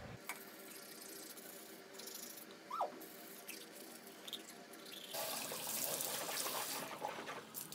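A manual toothbrush scrubs teeth quietly. About five seconds in, a sink tap runs for a couple of seconds for rinsing, the loudest sound here.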